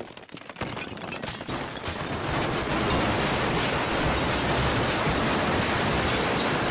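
Building-collapse sound effect: a spatter of cracks and crackles for about two seconds, then a dense, steady noise of crumbling, falling rubble.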